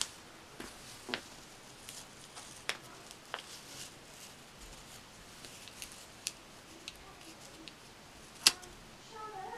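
Paper stickers being peeled and pressed onto a spiral-bound planner page: soft paper rustling with scattered light clicks and taps, the sharpest one near the end.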